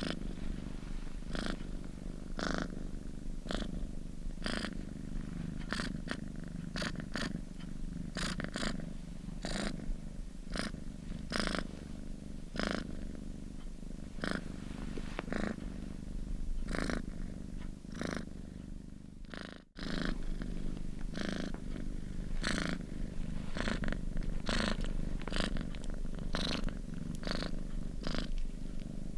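House cat purring steadily and close up, with frequent short rasps over a continuous low rumble. The purr breaks off for a moment about two-thirds of the way through, then carries on.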